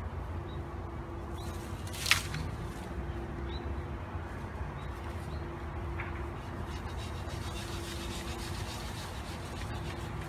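Long cut bamboo culms being handled and pulled from a bamboo grove: one sharp crack about two seconds in, then a soft rustle of leaves later on. Under it all is a steady low rumble and a faint steady hum.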